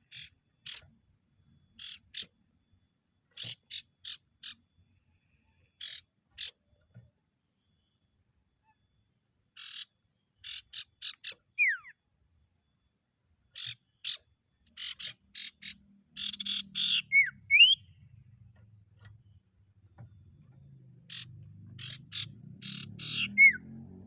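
Iora (sirtu) calling: quick clusters of short, harsh chirps, with a few sharp whistled notes sliding down in pitch and one sliding up.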